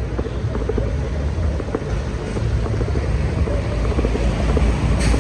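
Heavy rain and wind, with wind buffeting the microphone in a steady low rumble and many small scattered ticks of raindrops.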